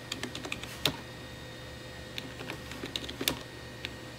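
Typing on a computer keyboard: quick runs of key clicks in two short bursts, with a lone keystroke near the end, entering commands at a DOS prompt.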